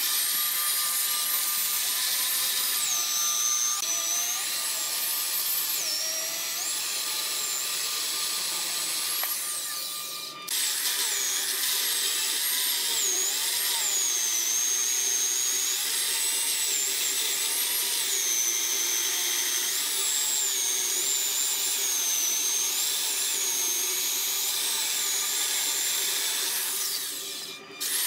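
Corded electric chainsaw cutting through a large log, its motor whining high and wavering up and down in pitch as the chain loads in the wood. The sound breaks off briefly about ten seconds in and again near the end.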